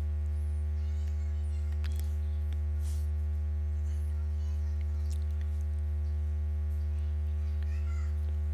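Steady low electrical mains hum with a stack of evenly spaced overtones. Over it come a few faint clicks and a few faint, wavering high-pitched sounds.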